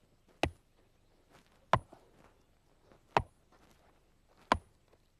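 A mallet striking a rock outcrop four times, one blow about every second and a half, each a sharp knock. The rock is being sounded to find a hollow, and it sounds hard and solid.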